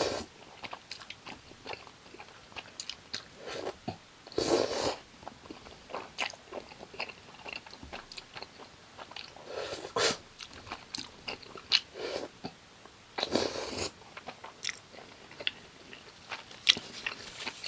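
Close-up eating sounds: biting and chewing of fried gimmari soaked in spicy tteokbokki sauce, with crunchy bites and many small wet mouth clicks. A few louder bites come several seconds apart.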